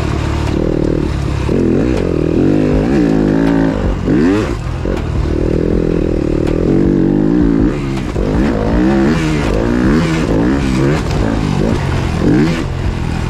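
Yamaha YZ250F motocross bike's four-stroke single-cylinder engine being ridden hard, revving up and down over and over, its pitch climbing and dropping with throttle and gear changes.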